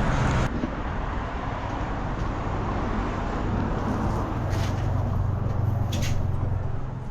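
Street traffic noise: a steady wash of road noise with a motor vehicle's engine hum growing louder in the second half.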